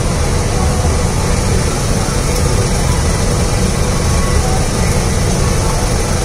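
A 2018 Gillig Low Floor 29-foot CNG transit bus running, heard from inside the cabin: a steady drone of engine and road noise.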